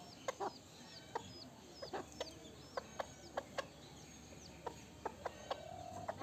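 Chickens clucking in a run of short, sharp notes, with faint high chirps between them and one longer drawn-out call near the end.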